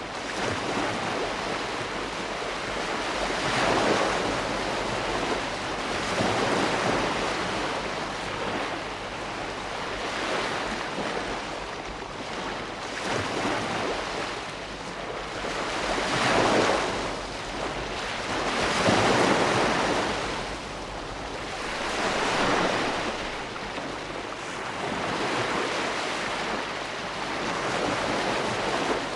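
Ocean waves breaking and washing ashore, a steady rushing hiss that swells and ebbs every few seconds, without music.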